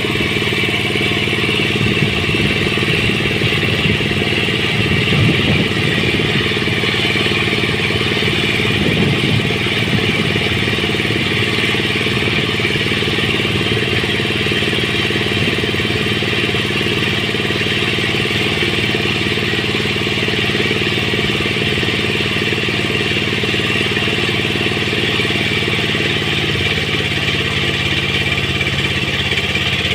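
An engine running steadily at idle, an even unchanging hum.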